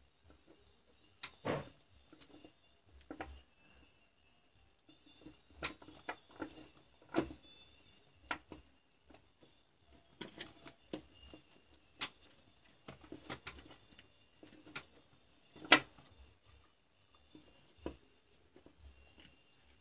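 Irregular clicks, taps and rustles of small plastic and metal parts being handled: a drill battery's terminal block and wired 18650 lithium-ion cells moved and fitted by hand on a workbench. One sharper knock comes about three-quarters of the way through.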